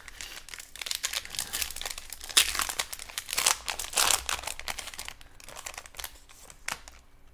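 Plastic trading-card pack wrappers crinkling as they are handled and opened, loudest about two and a half and four seconds in, then dying down to a few light clicks.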